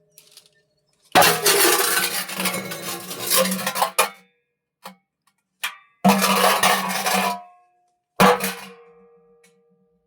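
Steel water pot (bindhe) clattering and clanking in three spells, each starting with a sharp hit and carrying a metallic ring. Two short knocks fall between the first and second spells, and the last clang rings on as it fades.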